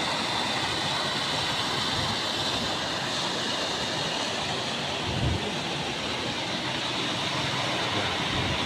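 Canal water rushing steadily through the regulator gates and churning into foam below. A low thump about five seconds in.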